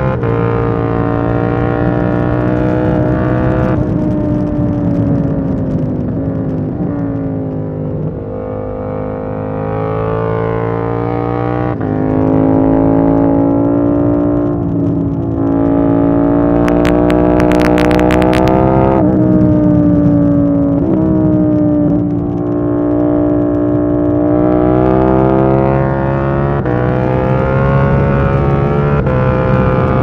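KTM 890 Duke R parallel-twin engine under way. Its note falls as the throttle is eased about five seconds in, then rises under throttle and drops sharply at each gear change. A short run of sharp crackles comes a little past the middle.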